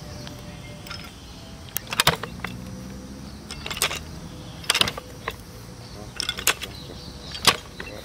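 A hand hoe chopping into red soil: sharp strikes at uneven intervals, about one a second, with a few quick ones together near the end, over a low steady background.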